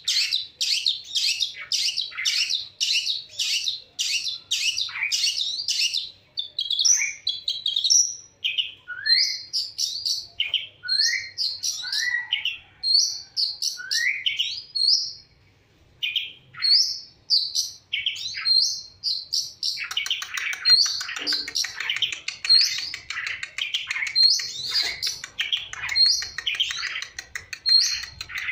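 Long-tailed shrike (cendet) singing: fast runs of sharp, repeated high notes, a short pause about halfway, then a denser, continuous warbling chatter in the last third.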